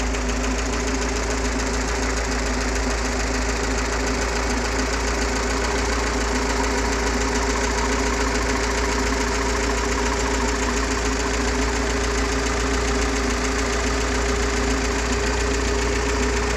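Freshly rebuilt UMZ-421 four-cylinder petrol engine in a GAZ-69 running steadily at idle, an even run with no revving.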